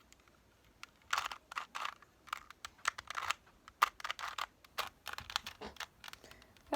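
Plastic clicking and clacking of a 2x2 Rubik's-type puzzle cube being twisted by hand, in irregular bursts of quick turns; the cube is stiff and sticky to turn.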